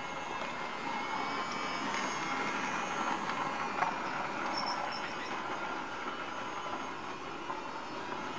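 Toy train running around its track, its small motor whirring steadily with the rattle of wheels on the rails. It is slightly louder as it passes close by in the middle, with one sharp click about four seconds in. The train is running again after a service and clean-up.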